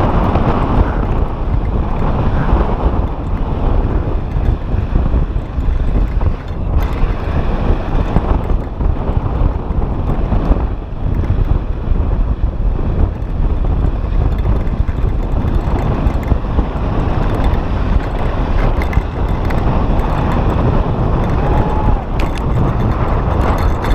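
Wind buffeting the microphone of a mountain bike descending at speed, with the tyres running over loose dirt; a steady, loud rush with no break.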